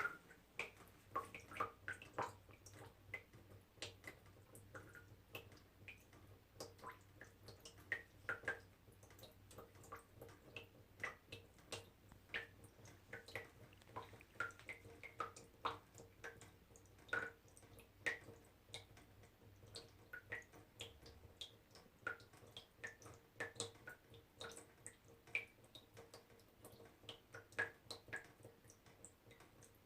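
Small water drops falling into water one after another, each a short bright plink, several a second at an uneven pace, over a faint low hum.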